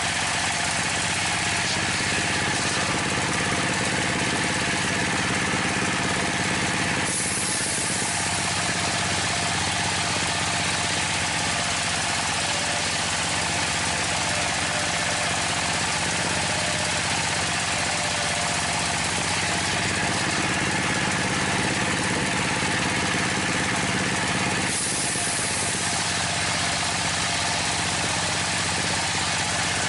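Dongfeng-type single-cylinder diesel engine ("dompeng") running steadily under load, driving a homemade circular saw table that is ripping through a large timber beam. The sawing hiss changes briefly about seven seconds in and again about five seconds before the end.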